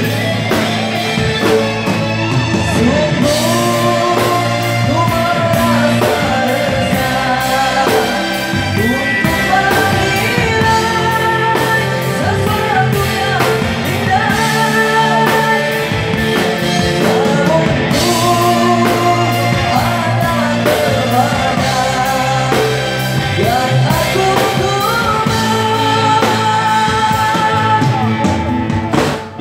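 Live rock band playing through a stage PA: electric guitars, bass and drum kit with keyboard, and a singer's voice carrying the melody over a steady beat.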